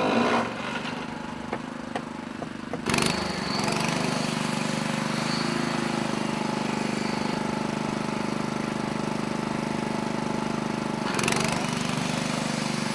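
Small portable petrol generator engine running steadily. A few light knocks come before it, and there is a short sharp burst about three seconds in and again near the end.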